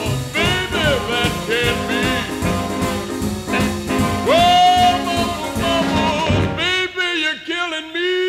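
Swing jazz music with brass instruments playing melodic phrases.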